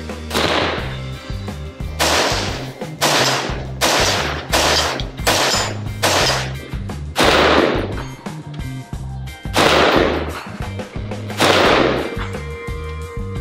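A Stag Arms 10S AR-10 rifle in .308/7.62x51 fires about ten single shots, mostly a second or so apart, with longer pauses near the end. Background music with a bass line plays under the shots.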